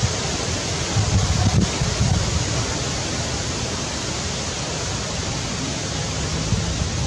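Steady rushing hiss of wind on the microphone, with uneven low buffeting.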